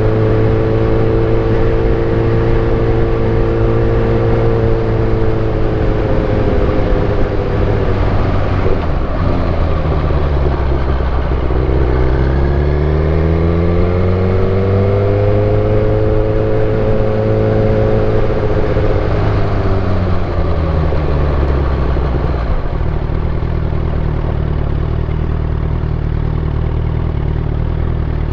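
Suzuki GSX-R1000 K8 motorcycle's inline-four engine under way: it holds steady revs, drops off about ten seconds in, pulls back up and holds again, then eases down to a lower steady note for the last several seconds.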